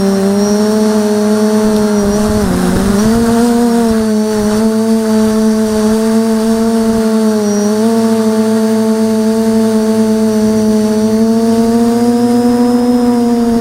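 Brushless motors and propellers of a 550 mm quadcopter humming steadily, heard loud from its onboard camera. The pitch sags briefly twice, once about two and a half seconds in and again about halfway, as the motor speed changes.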